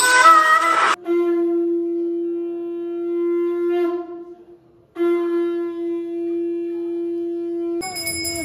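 Conch shell (shankh) blown in two long, steady blasts of about three seconds each with a short break between, as at a temple aarti. A bell starts ringing near the end.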